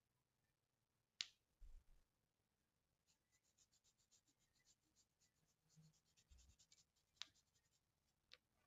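Near silence: room tone with three faint sharp clicks and, in the middle, a run of quick faint ticking.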